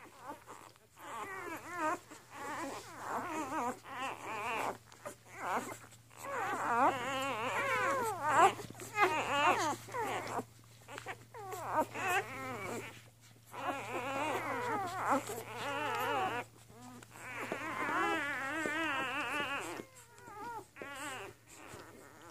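Newborn puppies squeaking and whining while they nurse, several high, wavering cries overlapping in spells of a few seconds with short pauses between.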